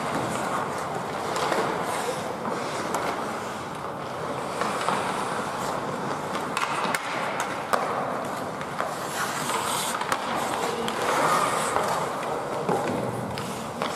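Skate blades scraping and carving on the ice, with scattered sharp clicks of hockey sticks on the puck and ice, over a steady rink hiss. A louder scrape comes about nine seconds in.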